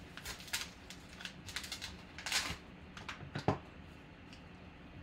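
Foil trading-card pack wrapper crinkling and crackling in a run of short crackles as it is torn open and handled, with one sharper knock about three and a half seconds in.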